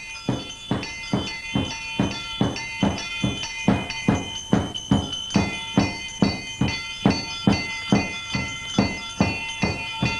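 Rhythmic music of drumbeats, about three strokes a second, with bright metallic ringing over them.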